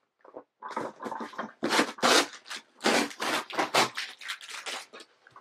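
A cardboard shipping box being torn open by hand: a run of rough ripping and scraping noises in uneven bursts, loudest about two to four seconds in.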